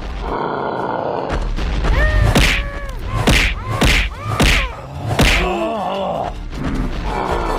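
Cartoon fight sound effects: about five punches and whacks land in quick succession from about two seconds in, with short pained grunts and cries from the characters, over background music.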